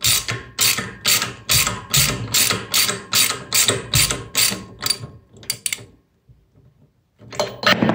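Socket ratchet clicking in quick strokes, about two or three a second, as it tightens a steam trap capsule down; the clicking stops about six seconds in and resumes briefly near the end.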